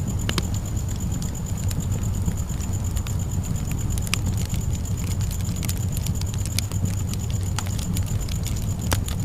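Campfire burning: a steady low rumble of flames with scattered sharp pops and crackles from the burning wood.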